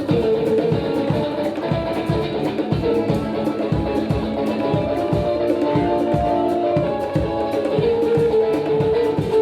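A live band playing an instrumental groove: held organ chords over a quick, steady percussion beat.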